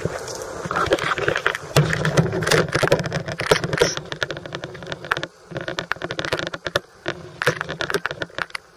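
A bicycle ridden over a rough, mud-crusted street: steady rattling with many sharp clicks and knocks, a little quieter after about five seconds.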